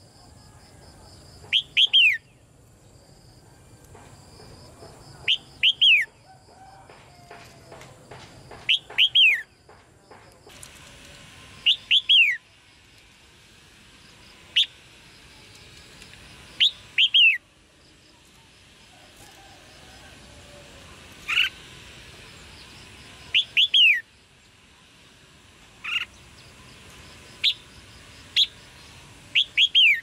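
Red-whiskered bulbul giving sharp chirping calls: quick falling notes in twos and threes, repeated about a dozen times, every two to three seconds.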